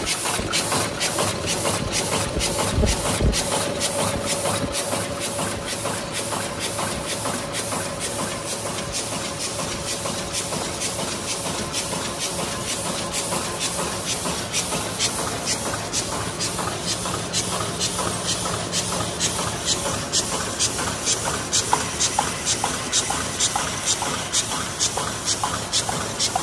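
Ruida RD-12/22-100A high-speed paper cup machine running at production speed, about 130–150 cups a minute: its open-cam drive and forming stations clack in an even rhythm of a little over two beats a second, over a constant hiss.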